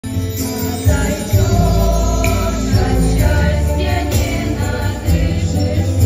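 Girls' vocal ensemble singing together over an accompaniment with a deep, steady bass.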